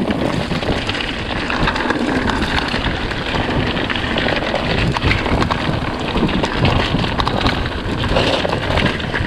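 Mountain bike rolling fast down a rough, stony dirt track: tyres crunching and skittering over stones and the bike rattling with many small knocks, under steady wind noise on the microphone.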